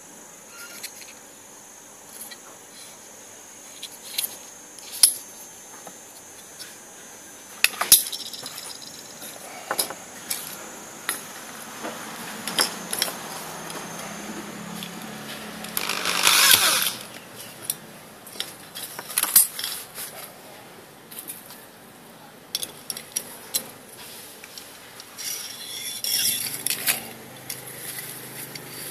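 Thin metal cans being handled and fitted together on a stone countertop: scattered small clicks, taps and tinny knocks, with a longer scraping rustle about midway and another near the end.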